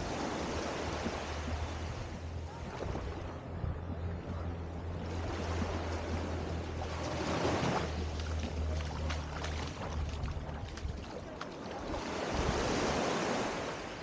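Small waves washing up a sand beach at the water's edge, the surf noise swelling and falling three times. A low steady hum runs underneath.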